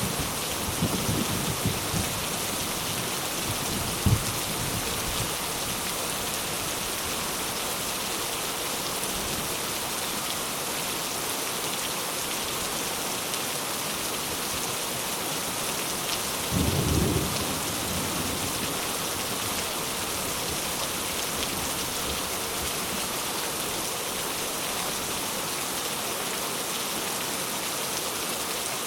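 Steady rain falling, with rolls of thunder: low rumbles in the first couple of seconds, a short sharp clap about four seconds in, and another rumble about halfway through.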